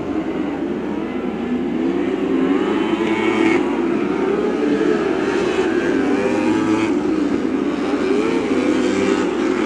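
Lightning sprint car engines racing on a dirt oval, several engine notes rising and falling in pitch together as the cars run through the turns.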